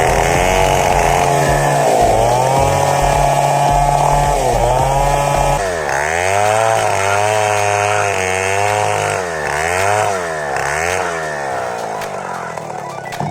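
Chainsaw engine running at high revs, steady at first, then from about six seconds in its pitch dips and recovers over and over as it cuts.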